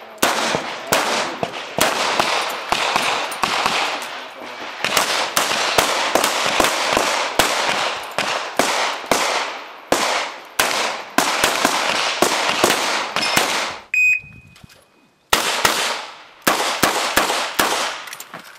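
Revolver fired in rapid strings of shots, each crack ringing out with a short echo, with short pauses between the strings and a near-silent gap of about a second and a half near the end.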